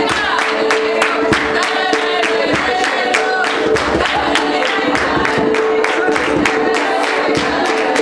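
Group of women singing a Georgian folk song in chorus to a strummed panduri, with steady rhythmic handclapping on the beat and one note held steadily under the melody.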